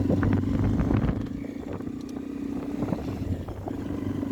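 Motorcycle engine running while riding, with road and wind noise and a few light knocks. The engine eases off about a second in and picks up again near the end.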